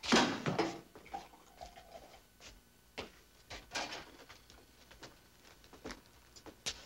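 A brief loud burst of noise, then scattered light knocks and clicks of a wooden chair being pulled out and sat on at a table, with footsteps on a hard floor.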